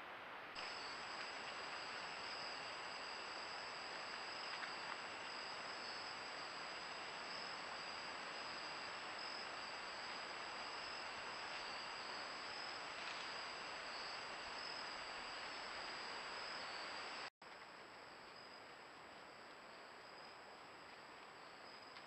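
Night-time crickets trilling steadily in a high, even chorus over a steady hiss. About 17 s in there is a brief cut, after which the chorus carries on a little quieter.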